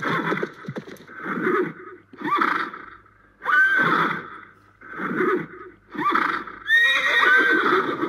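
A horse neighing: a series of about seven whinnies roughly a second apart, several beginning with a high rising note.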